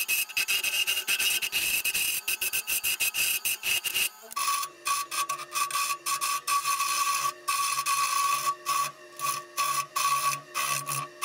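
Jet 1221 VS wood lathe running while a gouge cuts the inside of a spalted-wood bowl, a rapid scraping chatter over the motor's whine. The whine drops to a lower pitch about four seconds in.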